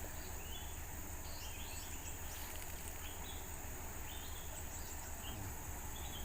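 Steady high-pitched drone of insects, with scattered short high chirps and a low rumble underneath.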